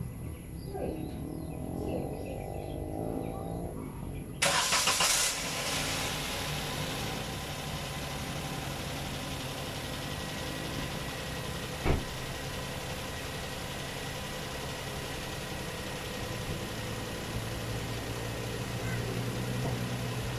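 Suzuki S-Presso's three-cylinder 1.0-litre petrol engine cranking and catching about four seconds in, then idling steadily. A single sharp click sounds about twelve seconds in.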